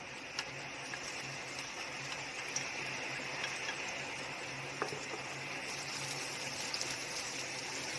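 Oil sizzling steadily in a hot frying pan, with a few small pops, as the cooking starts.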